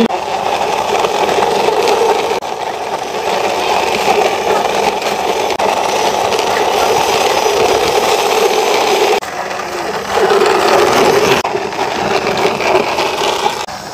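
Plastic toy bus pushed by hand along a rough concrete ledge, its wheels rolling with a steady grinding rattle that eases briefly a couple of times near the end.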